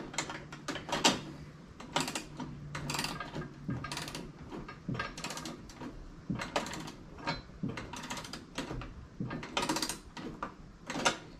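Socket ratchet wrench clicking in short bursts on its back-strokes, about once a second, as a bolt on a broadcast spreader's frame is tightened.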